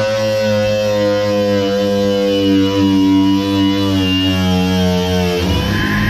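Background music of held guitar chords that change about five and a half seconds in.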